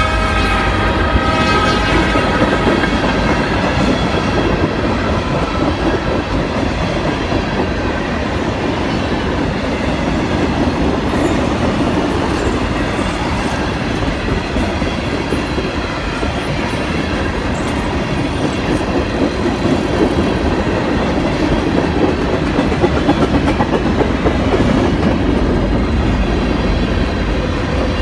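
Freight train of tank cars rolling past close by: a steady rumble of wheels on rail with the clickety-clack of rail joints. A ringing tone fades out over the first two seconds.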